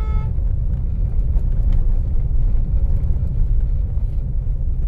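Steady low rumble inside a Hyundai Creta's cabin as it is driven slowly over a rough dirt road: tyre and road noise mixed with the engine, with faint scattered clicks and ticks from gravel and the car's body.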